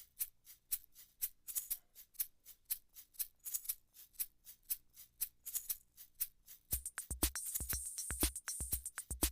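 Background music: a quick, even shaker-like percussion rhythm, with a heavier drum beat coming in about two-thirds of the way through.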